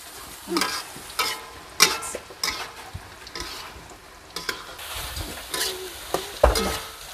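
A spatula scrapes and knocks against a pan in irregular strokes, about one a second, while bitter melon and egg stir-fry sizzling in hot oil.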